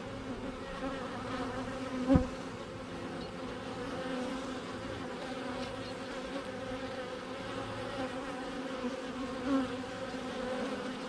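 Honeybees buzzing steadily around a hive entrance, a busy hum of many wingbeats from a newly settled swarm. A louder, closer buzz comes about two seconds in and again near the end, as bees pass close by.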